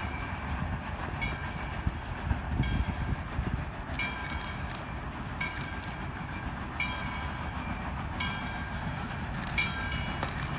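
Steam doubleheader approaching, its locomotive bell ringing slowly and steadily, about one stroke every second and a half, over the low rumble of the engines working.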